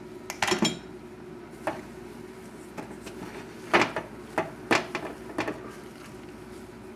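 A spatula and a metal mixing bowl knocking and clinking against the rim of a small metal saucepan while beaten egg whites are scraped into melted chocolate for folding. A few knocks come in the first two seconds, then a quicker run of clanks about four to five and a half seconds in, over a steady low hum.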